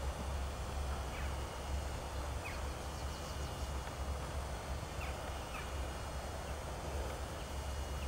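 Lakeside ambience: a steady low rumble with a few faint, short bird calls scattered through it.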